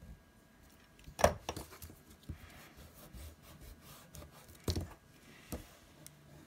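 A mechanical pencil and a rubber eraser handled on a desk: two sharp clacks as they are set down, one about a second in and one near five seconds, with an eraser rubbing on paper between them.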